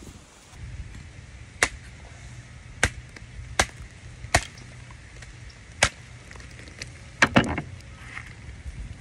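Machete chopping into a water coconut: about seven sharp strokes at irregular intervals of roughly a second, the last two coming in quick succession.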